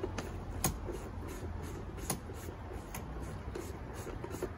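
Handling noises as engine oil is poured from a plastic bottle into an outboard engine's filler: faint rustling with two sharp clicks, about half a second and two seconds in, over a steady low hum.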